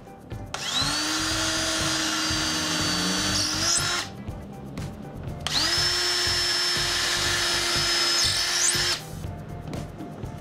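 Cordless drill boring two pilot holes through a cabinet's top panel into the side panel below. Each run lasts about three and a half seconds with a steady motor whine, and the pitch jumps up just before the motor stops.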